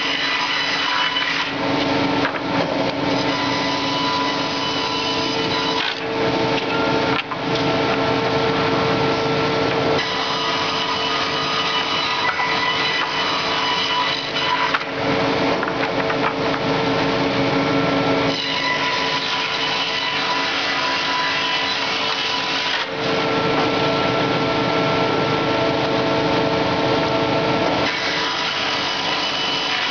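Hydraulic lumber edger running, its circular saw blades ripping the edges off boards fed through one after another. There is a steady whine from the machine under the sawing, and the cutting noise changes every few seconds as each board enters and clears the blades.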